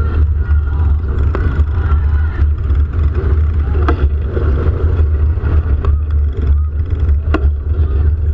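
City road traffic in a slow crawl, with a heavy, steady low rumble of engines and movement. Faint shouting from a crowd sits in the background, and two sharp clicks come about four and seven seconds in.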